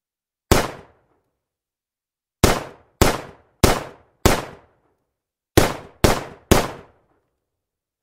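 CZ 75 9 mm semiautomatic pistol fired eight times: one shot, then four about half a second apart, then three more. Each shot is short with a brief ring and no long echo tail.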